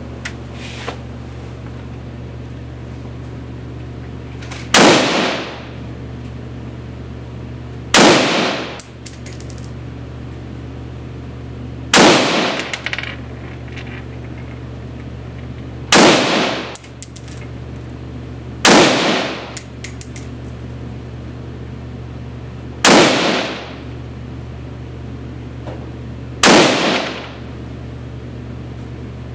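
MSAR STG-556 bullpup rifle in 5.56 mm firing seven single aimed shots, spaced unevenly about three to four seconds apart. Each shot rings off the concrete walls of an indoor range, with light metallic clinks between some shots.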